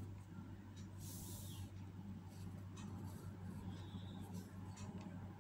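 Ballpoint pen scratching on paper in short drawing strokes, with a longer stroke about a second in, faint over a steady low hum.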